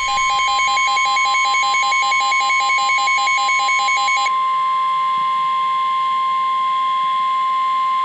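NOAA Weather Radio's steady warning alarm tone coming through weather-alert radios, the signal that a warning such as a severe thunderstorm warning is about to be read. Until about four seconds in, a weather radio's rapid pulsing alert beeps sound over the tone; the steady tone then continues alone.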